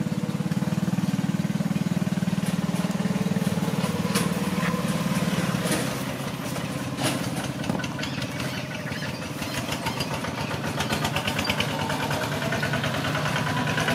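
A small engine idling steadily, a little quieter through the middle and building again near the end.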